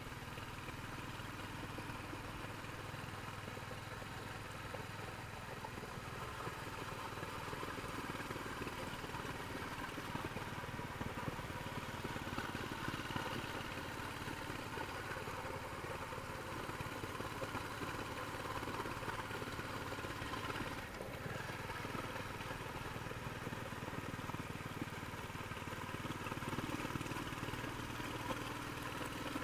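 Royal Enfield Hunter 350's single-cylinder engine running steadily through its stock exhaust, with a brief dip in the sound about two-thirds of the way in.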